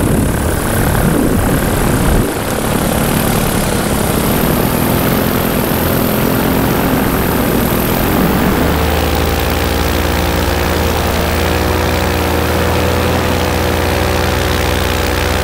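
Vittorazi Moster 185 two-stroke paramotor engine and propeller running in flight. The engine note becomes steady and even about eight seconds in.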